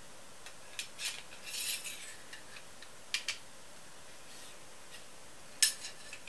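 Small steel lathe parts clicking and clinking together as a shaft and its little gear housing are handled and fitted by hand. There are a few light clicks and a short scraping rattle about a second and a half in, then two clicks around three seconds. A sharper click near the end is the loudest.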